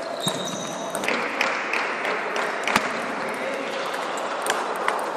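Table tennis rally: the celluloid ball clicks sharply and irregularly off the bats and table, with a brief high squeak of sneakers on the wooden gym floor near the start. A steady rushing noise from the hall sets in about a second in.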